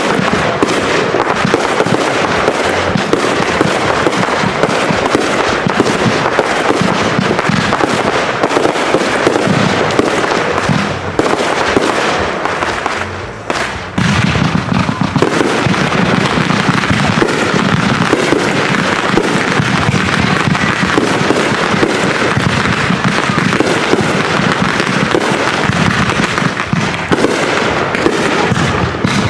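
Consumer firework cakes firing in quick succession: a dense, continuous run of loud bangs, pops and crackles, with a brief lull about 13 seconds in before the next volley starts.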